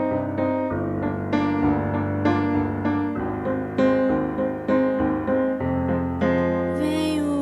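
Piano-style keyboard music: a slow run of struck chords and single notes over a held bass line. A voice comes in near the end.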